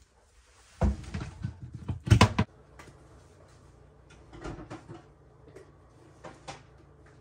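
Clunks and rattles as the range's heavy power cord plug is pulled out of the wall receptacle, a burst of knocks about a second in and the loudest clatter near two seconds in, then a few lighter knocks.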